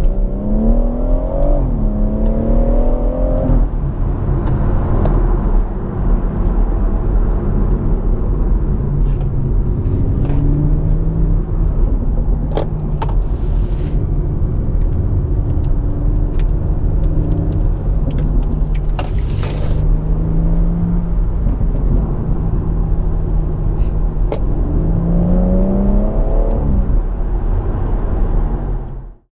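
BMW M140i's turbocharged straight-six running through the M Performance exhaust, revving up hard at the start and again near the end with a steadier engine note in between. A few sharp cracks cut through in the middle, and the sound fades out just before the end.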